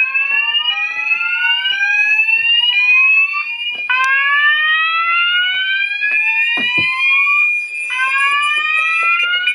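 Several fire alarm sounders of a fire alarm system sounding together out of step during a system test. Repeating rising sweep tones of different lengths run over a steady high tone, until all cut off together at the end.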